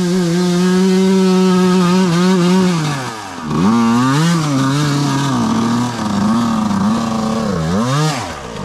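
Two-stroke dirt bike engine under throttle while riding. It holds high revs, backs off sharply about three seconds in, then picks up again in several rising and falling throttle swells, and drops off once more near the end.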